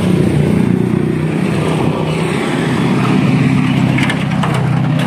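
An engine running steadily at an even speed, with a few light clicks about four seconds in.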